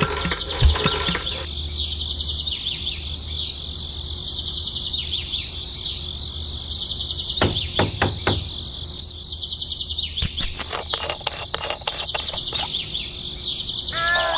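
Steady bird and insect chirping. A miniature tractor's small motor hum drops away about a second and a half in, two sharp clicks come about halfway through, and a run of light ticks follows later.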